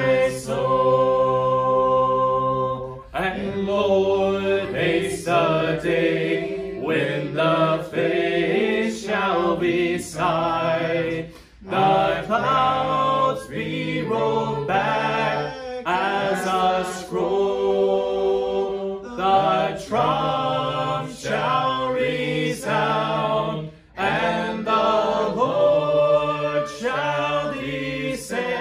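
Several voices singing a hymn a cappella in harmony, with no instruments, in phrases broken by short breaths.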